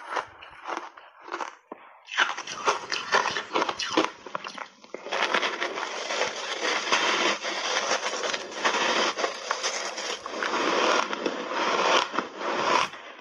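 Ice chunks coated in matcha and milk powder crunching and crackling as they are bitten and chewed. A few scattered crunches at first, then dense, nearly continuous crunching from about five seconds in.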